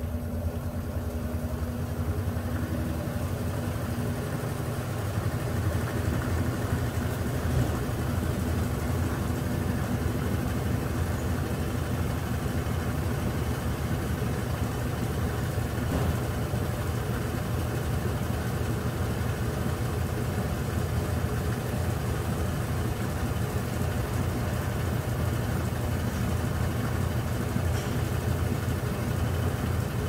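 Consul Facilite 10 kg top-load washing machine in its spin cycle, after a mechanical overhaul: a steady hum from the motor and drive as the basket spins, building a little over the first few seconds and then holding even.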